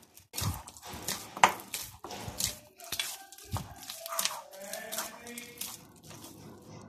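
Hands kneading soft pizza dough in a glass bowl: a run of soft slaps, squishes and presses as the dough is pushed and folded, with occasional light knocks from the glass bowl.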